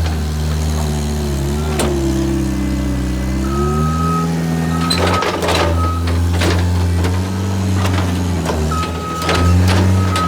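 Skid steer engine running under load, its pitch sagging and rising as the machine works, with several sharp clanks and knocks from the stump bucket. From about three and a half seconds in, a reverse alarm beeps in short repeated pulses as the machine backs up.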